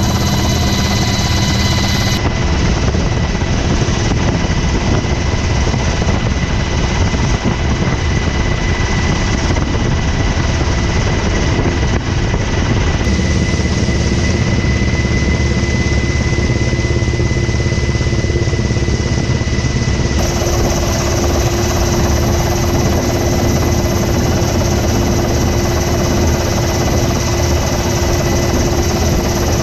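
MH-60R Seahawk helicopter in flight, heard from inside the cabin at the open door: loud, steady rotor and twin turboshaft engine noise with a steady high turbine whine over a dense low rumble. The mix changes abruptly a few times, about two, thirteen and twenty seconds in.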